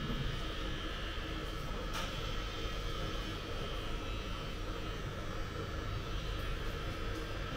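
Steady background hum and hiss with a faint even whine, and no distinct events.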